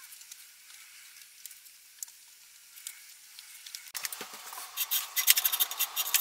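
Faint hiss with a few light clicks, then from about four seconds in a louder, busy run of rustling and sharp clicks as a cable is handled and pulled along a metal monitor arm.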